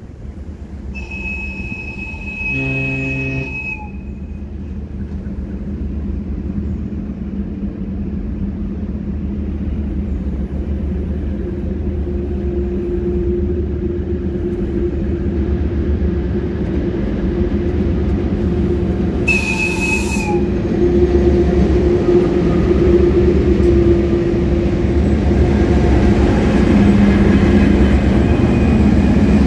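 A VL10 electric locomotive coupled to a twin-section 2M62 diesel locomotive approaches and passes, its rumble of wheels and machinery steadily growing louder. The horn sounds a blast of about three seconds near the start, a high whistle over a lower note, and a second, shorter high blast about two-thirds of the way through. Near the end the 2M62 diesel draws alongside and its engine note comes to the fore.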